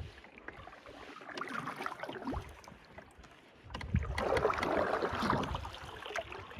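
Canoe paddling on calm water: a plastic-bladed paddle dipping and pulling, with water swishing along the hull and faint knocks. A louder rushing stretch comes a little past halfway and fades before the end.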